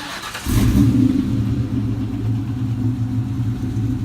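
Ford Mustang GT's V8 engine being started after work on an exhaust leak: a brief whir of cranking, then the engine catches about half a second in, flares up in revs and settles into a steady idle.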